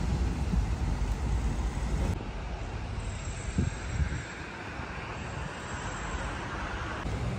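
City street ambience: traffic noise from passing cars, a steady rumble and hiss with no clear single event. The sound changes abruptly twice in the first three seconds, and a broad hiss swells in the later half.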